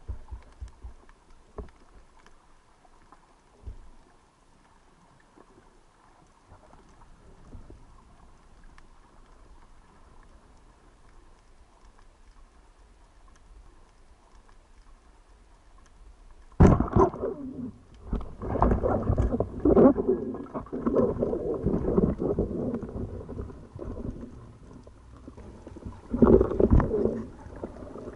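Underwater sound picked up through a camera housing: at first a faint hiss with a few scattered clicks, then, about two-thirds of the way in, loud irregular rushing and gurgling of water moving around the housing, which comes and goes until the end.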